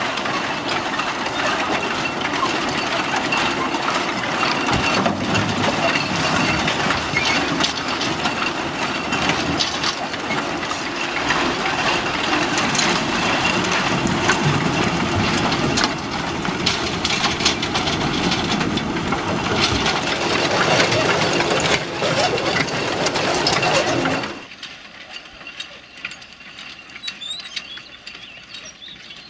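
Bucket-chain excavator running, its bucket chain clanking and rattling in a dense mechanical clatter as it digs clay into the tipping wagons beneath it. The clatter drops sharply about 24 seconds in and is faint after that.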